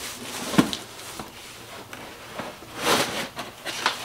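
Cardboard box and foam packing being handled as a 3D printer is lifted out: a knock about half a second in, then short bursts of scraping and rustling around three seconds in and again just before the end.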